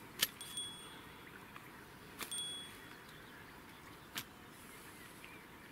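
Small bite-alarm bell on a fishing line tinkling briefly twice, each a short high ding, among a few sharp clicks as the line is drawn taut.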